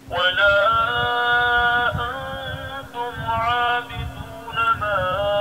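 A single voice reciting the Quran in melodic chant, with long held notes and ornamented pitch turns, in several phrases that begin suddenly; a steady low hum lies underneath.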